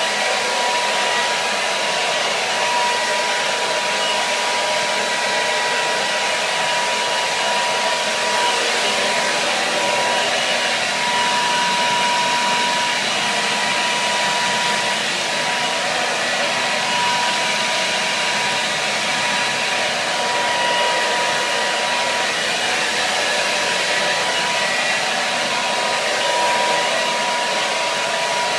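Hair dryer running steadily: an even rush of air with a thin, steady whine on top.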